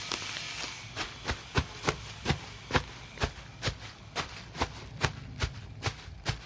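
Bubble wrap bubbles being popped one after another, a steady run of sharp pops about two or three a second.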